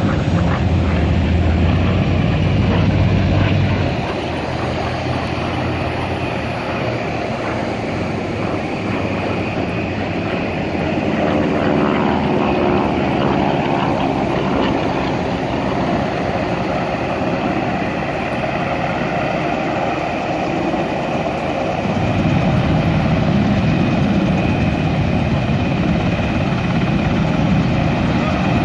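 Piston engine of a single-engine WWII-style propeller warplane flying airshow passes: a continuous engine drone that swells and fades as the plane comes and goes, with its pitch sliding partway through. It is loudest at the start and again in the last several seconds.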